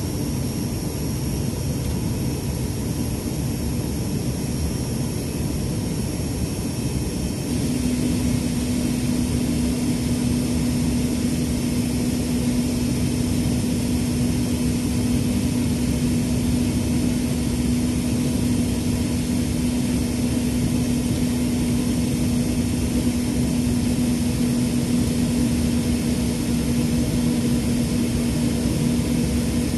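Steady cabin drone of the ATR 72-600's Pratt & Whitney PW127M turboprops and six-blade propellers, heard from a seat beside the propeller on the landing approach. About a quarter of the way in, a steady low hum joins and the drone grows slightly louder.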